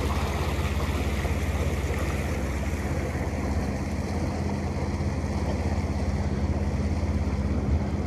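A boat's engine running steadily with a low hum, under a steady rush of water and wind noise.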